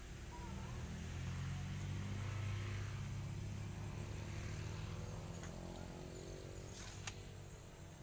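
Engine of a motor vehicle passing by, growing louder to a peak a couple of seconds in and then slowly fading away.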